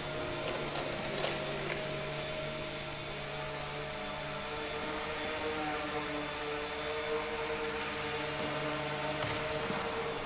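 Small electric model airplane's motor and propeller running in flight, a steady hum whose pitch rises slightly about halfway through.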